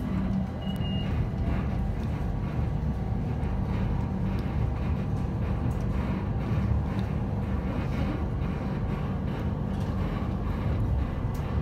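Steady low rumble of an Airport Rail Link electric train running along elevated track, heard from inside the carriage. A brief faint beep sounds about a second in.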